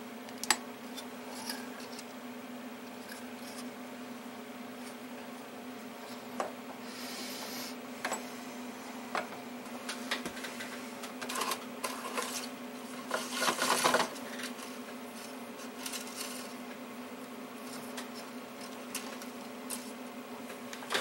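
Steady electrical hum, with scattered light clicks and rubbing from hands handling a computer circuit board. A few louder handling noises come through, the longest about 13 seconds in.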